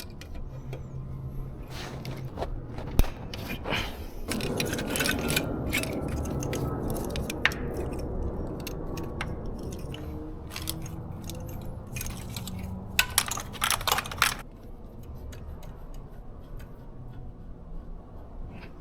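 Hand tools and metal engine parts clinking and scraping as the engine is worked on, over a low steady hum. A quick cluster of sharp clicks comes about two-thirds of the way through.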